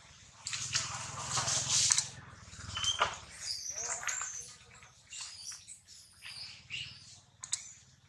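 Long-tailed macaque chewing and biting into soft, ripe yellow fruit: irregular wet smacking and squishing, densest in the first couple of seconds, then scattered clicks, with one brief high chirp about three seconds in.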